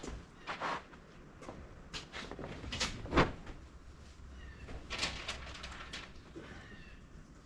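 Irregular metallic clanks and knocks of hand tools and parts being handled while working on a track machine's undercarriage. The loudest knock comes about three seconds in, and a quick cluster of clicks follows around five seconds in.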